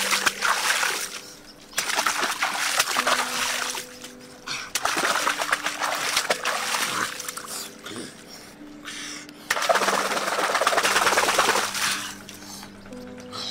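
Heads of napa cabbage being plunged and shaken hard in river water by hand, splashing and sloshing in about four long bursts with short pauses between.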